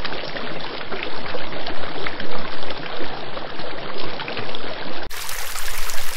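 Rushing, splashing water. About five seconds in it cuts abruptly to a brighter, hissier rush of surf on the shore.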